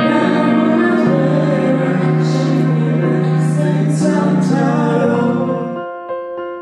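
Background music: full sustained chords over a slowly changing bass, with a few shimmering cymbal-like swells. Near the end it thins out into a soft line of single keyboard notes.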